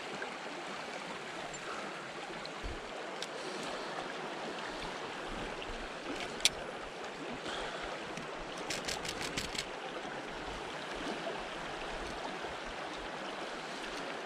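Small, shallow creek running steadily over rocks and gravel. A single sharp click about six and a half seconds in, and a quick run of about eight ticks some two seconds later.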